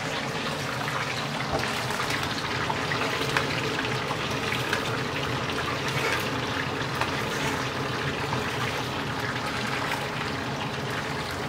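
Whole red snapper deep-frying in a wok of hot oil: steady sizzling and bubbling with small crackles, as hot oil is ladled over the fish.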